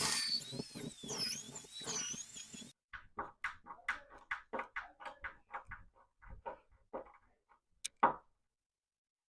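A high, wavering squeak over a scraping rustle for about three seconds, then a run of small clicks and taps as dummy door-knob hardware is handled and fitted, with a sharper click about eight seconds in.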